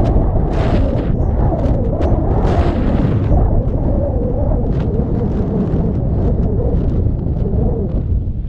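Strong coastal wind buffeting the camera's microphone, a dense low rumble, with two brief hissing surges about half a second and two and a half seconds in.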